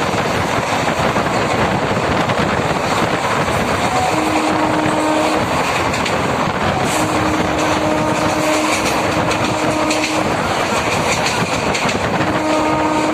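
MEMU electric multiple-unit train running on the rails, a loud steady rumble and rattle of the wheels on the track. A steady low hum tone comes and goes three times.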